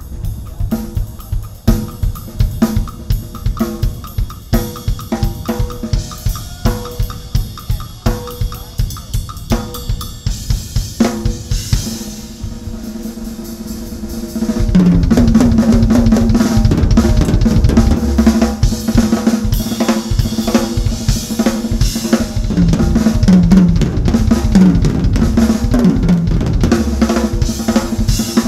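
Acoustic drum kit played live: snare, bass drum and cymbals keeping a steady beat of about two hits a second. About halfway through, after a brief softer stretch, the playing turns much louder and denser.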